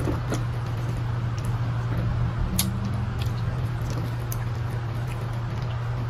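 Wet mouth clicks and lip smacks of someone chewing fish eaten by hand, scattered a few to the second, over a steady low hum.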